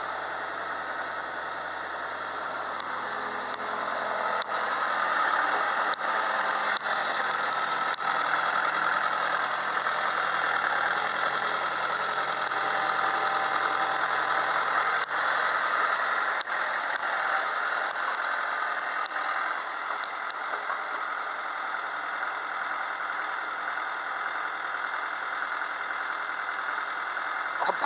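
Old Komatsu hydraulic excavator's diesel engine running under load while the boom works, with a steady high hiss over the engine that grows louder about five seconds in and eases off past the middle.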